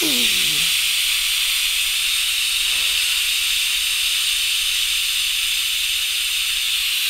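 Steam hissing steadily from the pressure-release valve of a Cosori 2-quart electric pressure cooker, vented by pushing the release button to let off the built-up pressure after cooking.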